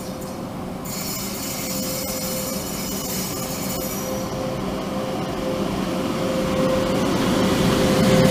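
ÖBB class 1044 electric locomotive rolling slowly past close by, with a steady electric hum. A high-pitched squeal starts about a second in and stops around four seconds, and the sound grows louder near the end as the locomotive comes alongside.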